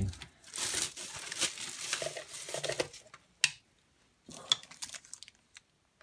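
Plastic packaging film crinkling and rustling as it is handled, then a single sharp click about three and a half seconds in, followed by a few faint clicks.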